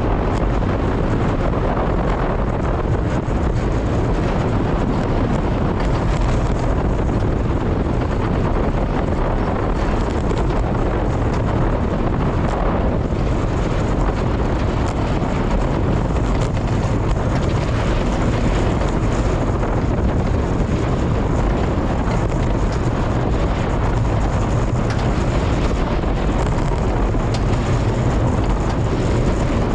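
Steady rush of wind buffeting the microphone over the rumble of the roller coaster train running along Storm Chaser's RMC I-Box steel track, with no break in loudness throughout.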